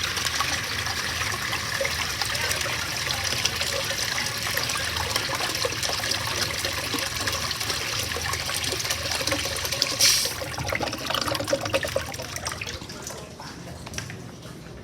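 Two American Standard Washbrook urinals flushing: steady rushing water, with a fresh surge about ten seconds in, then trailing off to a trickle near the end.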